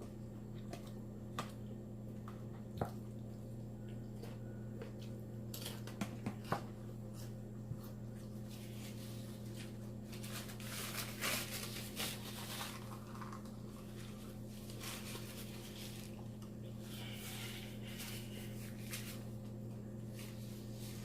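Close-miked chewing of a salad with croutons: wet squishing and crunching, with scattered sharp clicks, over a steady low hum. The chewing is densest in the middle of the stretch and again near the end.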